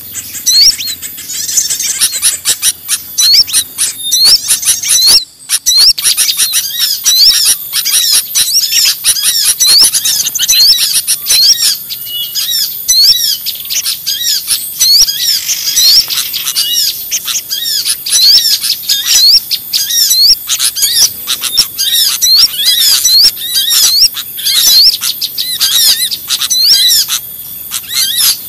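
A dense, noisy chorus of many small songbirds chirping and calling over one another, quick hooked chirps repeating several times a second, with a brief break about five seconds in. It is a bird-lure (pikat) recording of small birds, played to draw small birds in.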